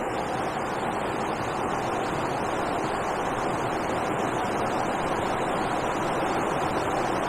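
Steady rush of water pouring over a river weir, an even, unbroken noise.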